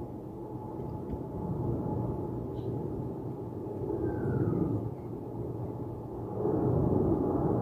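Jet airliner's engines heard climbing out after takeoff: a steady low rumble with a faint constant whine, growing louder about six seconds in.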